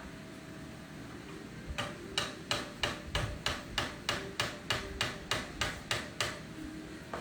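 Hammering: about fifteen even strikes, roughly three a second, that start a couple of seconds in and stop near the end, over a steady background hiss.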